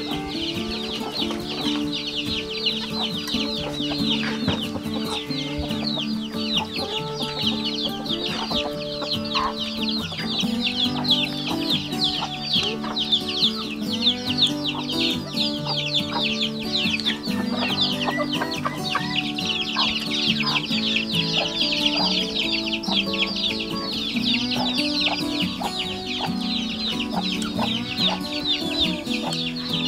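Many birds chirping without pause in quick, high, falling peeps, over background music of held low notes.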